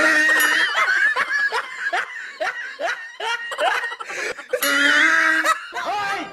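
Laughter: a quick run of short 'ha' bursts, about three a second.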